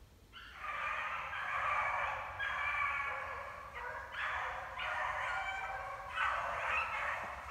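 Pack of beagles baying in chorus while running a rabbit, their overlapping drawn-out voices starting about half a second in and carrying on with a couple of short breaks.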